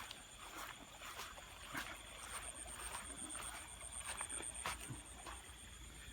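Soft irregular footsteps at a walking pace, roughly one or two a second, over a steady high-pitched chirring trill from the surrounding field.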